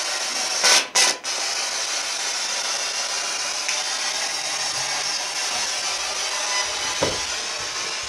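Ghost box sweeping through radio stations: a steady static hiss, with two short loud bursts about a second in and a brief falling sound near the end.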